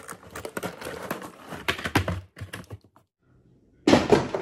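Rapid tapping and clicking as a cardboard toy box is handled. After a short pause, a sudden loud hit near the end that rings and fades away.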